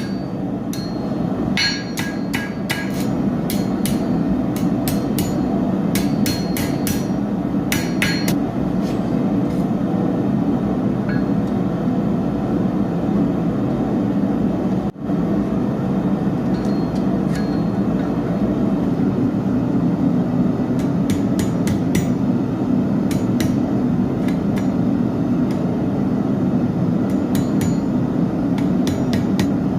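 Forging hammer striking hot steel on an anvil in bursts of quick blows, over a steady low rumble. There is a short dropout about halfway.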